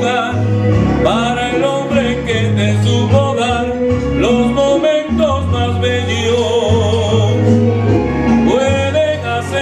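A man singing a Spanish-language love song in long held, sliding notes over an instrumental backing with a steady bass line.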